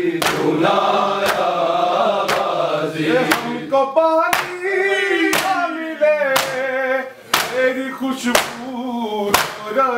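A group of men chanting a Muharram noha together, with sharp slaps of hands striking chests (matam) about once a second, keeping the beat of the chant.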